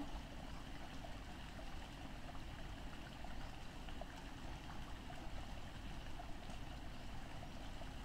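Water of a small waterfall running steadily over rocks: a thin flow, low in water at this time of year.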